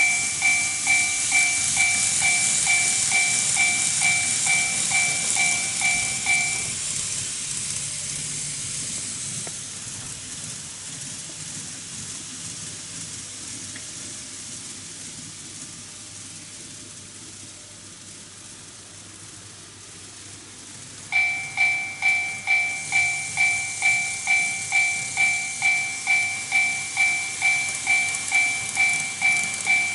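Warning bell of a TOMIX automatic level crossing model, an electronic two-tone ding repeating about two and a half times a second, over the running noise of model trains on the track. The bell stops about seven seconds in, the train noise fades away, and the bell starts again about twenty-one seconds in as the crossing is triggered once more.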